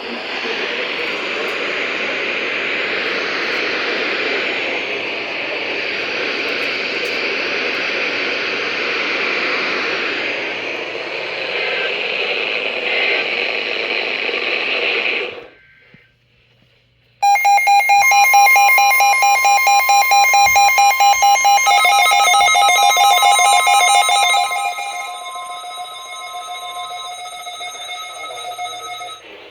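Loud radio static hiss for about fifteen seconds, which cuts out abruptly. After a brief silence, electronic emergency-alert tones start: several pitches sound together, some beeping rapidly, marking the start of the next warning broadcast.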